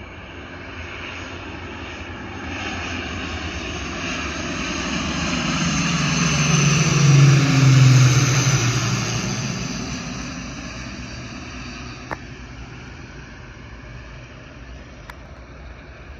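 Dornier C-146A Wolfhound twin-turboprop passing on its landing approach. The engine and propeller drone grows louder to a peak about seven to eight seconds in, then drops in pitch and fades as it goes by. Two brief clicks come near the end.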